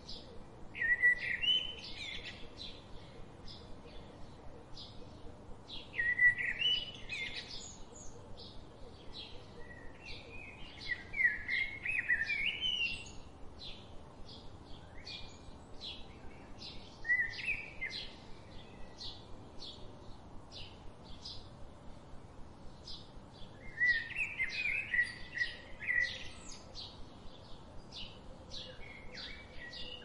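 Songbirds singing: short warbled phrases recur every few seconds, over a steady run of short high chips about two or three a second.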